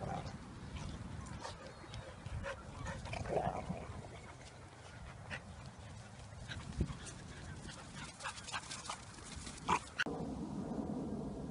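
Dogs at play in the open, giving a few short barks over outdoor noise.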